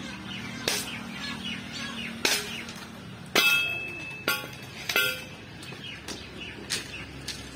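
Hard clacks of stone weights and bamboo sticks knocking together as a bamboo mat is woven on a frame, about six separate knocks, some with a short ringing tail. Birds chirp in the background.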